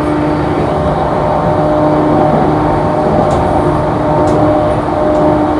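JR East E235-series electric train running at a steady speed, heard from inside the car: a steady rumble of wheels on rail with a steady motor hum and a few faint ticks.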